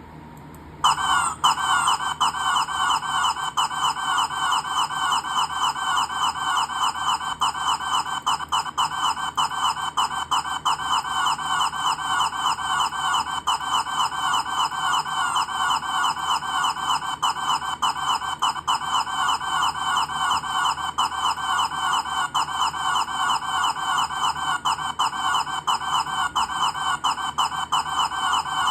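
A funny sound repeated over and over: short, clucking chirps, several a second, at an unchanging pace and level. It starts abruptly about a second in.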